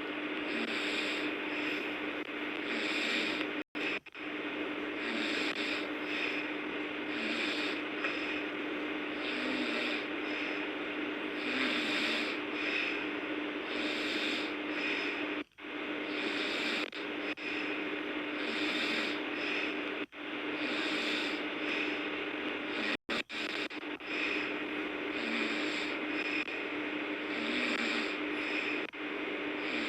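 A sleeping person snoring, breath after breath, over a steady low hum. The sound cuts out briefly a few times.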